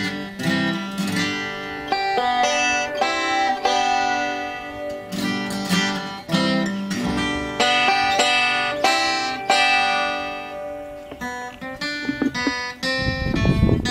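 Bluegrass banjo music: quick plucked banjo picking over guitar backing.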